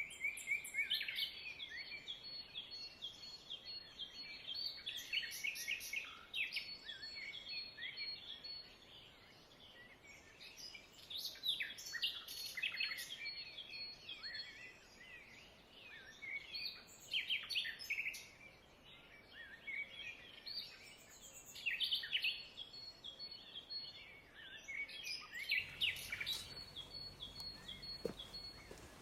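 Birds chirping and singing, many short calls overlapping, with a thin, even, high trill that comes and goes every few seconds.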